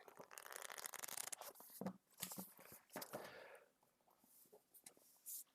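Fingers and nails scratching and tapping on a book's hardcover, soft and close up. A stretch of quick scratching is followed by scattered light taps and a brief rub.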